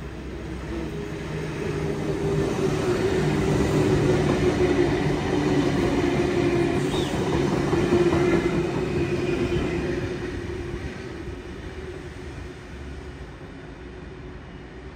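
A train passing through the station: it grows louder over the first few seconds, is loudest through the middle, then fades away, with a steady whine over the rumble.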